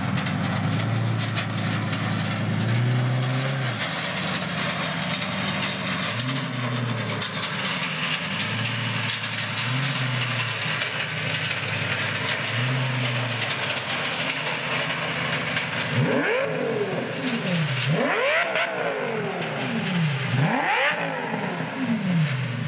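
Lamborghini Gallardo V10 running through a pair of five-foot cone-shaped exhaust tips, extremely loud. A low, steady idle with a light throttle blip every few seconds, then three hard revs near the end that climb and drop sharply.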